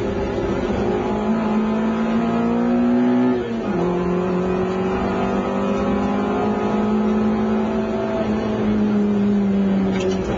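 Rally car engine heard from inside the cabin, pulling hard with the revs climbing. A little over three seconds in, an upshift briefly cuts the engine and drops the pitch, then the revs climb again.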